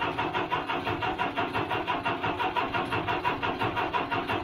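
Broderson crane's engine idling cold with an even pulsing beat, about seven beats a second; the owner expects it to run smoother, "purring better", once it warms up.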